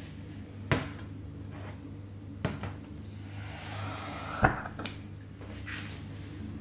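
A titanium camping pot is set down with a clack on a metal tabletop, followed by a smaller knock, over a steady low hum. About three seconds in, a long-reach gas lighter hisses as its flame lights the alcohol stove, ending in a sharp click, with a lighter click just after.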